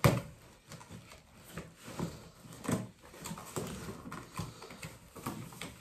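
Parcel packaging being opened by hand: a sharp knock at the start, then irregular rustling, scraping and small ticks of the wrapping as it is pulled and handled.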